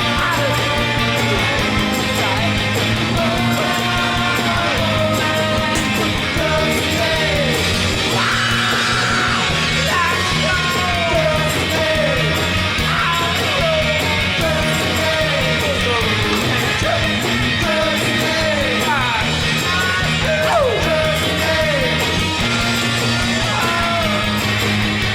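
Background rock music with distorted guitars, a lead line sliding in pitch, and a steady beat.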